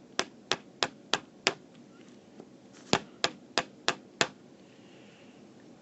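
Pencil tapping lightly on a table: five sharp taps about three a second, a pause, then five more.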